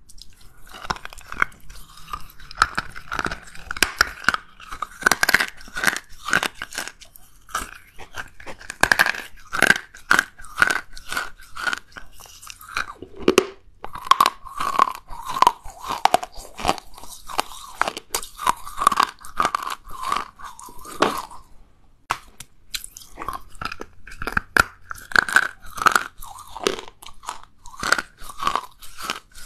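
Chunks of china clay (kaolin) being bitten and chewed, a dense run of crunches with a short pause about two-thirds of the way through.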